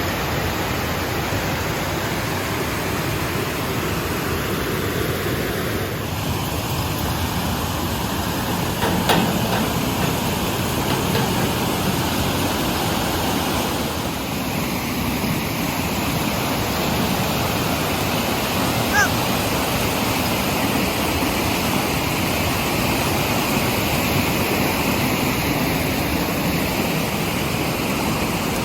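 Steady rushing noise of flowing or falling water, with a short knock about nine seconds in and a brief high chirp later.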